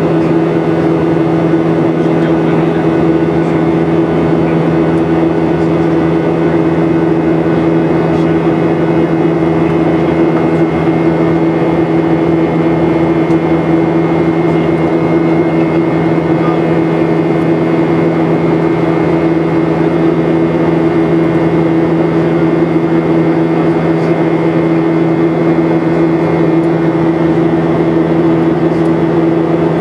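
Boeing 737-700 cabin noise in flight, heard from a window seat inside the cabin: the CFM56-7B turbofan engines and airflow make a steady, unchanging drone of low hum with a faint high whine over rushing air.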